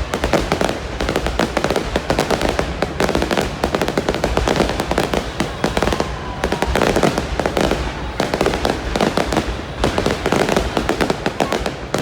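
Fireworks display: many aerial shells bursting in quick, overlapping succession, a continuous rapid barrage of bangs and crackles with no pause.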